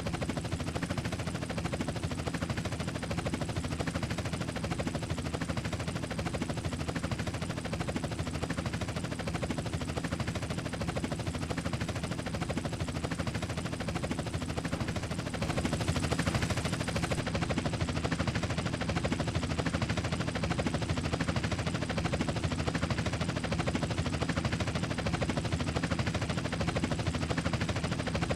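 Helicopter running steadily, its rotor giving a fast, continuous chop over a low engine drone. It grows slightly louder about halfway through.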